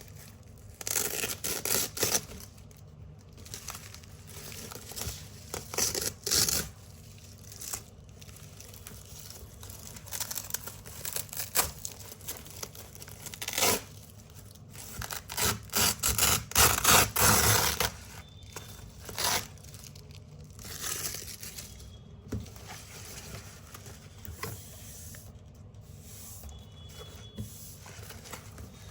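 Hook-and-loop (Velcro) strips being ripped apart from a big roll, in a series of crunchy tearing rips of varying length with short pauses between them; the longest and loudest run of rips comes about halfway through.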